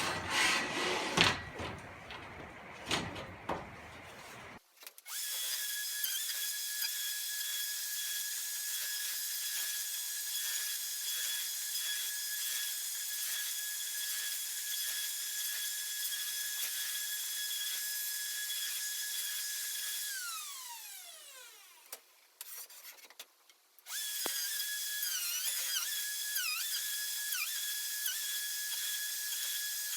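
DeWalt router on a flattening sled, cutting a maple slab at first, then running with a steady high whine. About two-thirds of the way in the router winds down with falling pitch and goes quiet. A few seconds later it starts up again, its pitch dipping as the bit bites into the wood.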